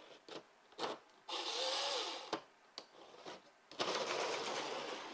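HO-scale slot car's small electric motor whining as the car runs along the track: a short run about a second in, a few light clicks, then a longer run from about four seconds in.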